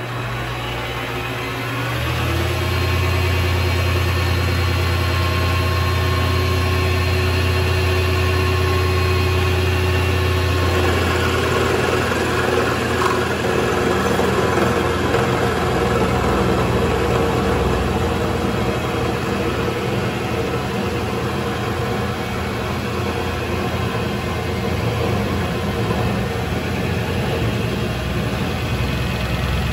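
Vevor MX 400 mini lathe running with the chuck spinning, a steady machine hum that gets louder about two seconds in. From about eleven seconds a rougher, noisier sound joins as the parting tool is fed into the spinning screw to part it off.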